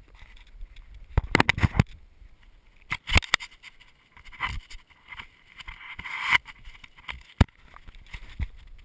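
Handling noise from an action camera worn while climbing a tree: irregular knocks, clicks and scrapes as the camera and body bump and rub against the bark. There is a quick cluster of knocks early on and another about three seconds in, then a longer rushing scrape that stops suddenly about six seconds in, and a few single clicks near the end.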